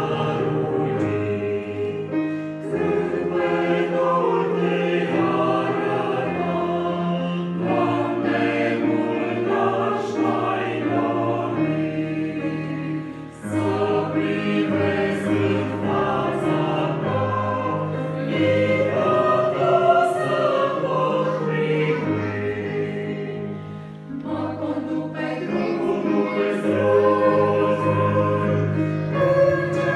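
A small church choir singing a slow hymn with sustained keyboard accompaniment, pausing briefly between phrases about 13 and 24 seconds in.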